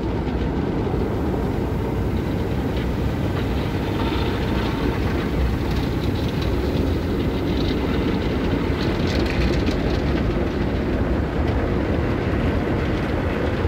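Automatic tunnel car wash heard from inside the car: cloth wash brushes scrubbing over the windshield and body amid a steady rumble of water spray and machinery.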